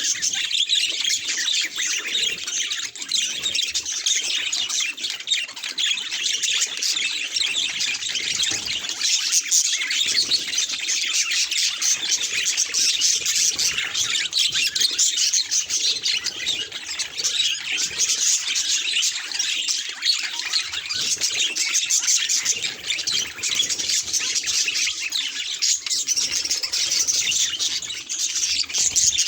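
Budgerigars chattering: a dense, unbroken run of quick, high chirps and warbles.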